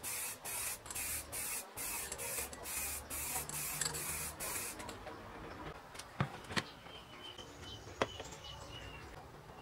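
Aerosol can of clear coat spraying in quick short bursts, about three a second, stopping about five seconds in. After that come a few sharp light knocks of wooden parts being handled.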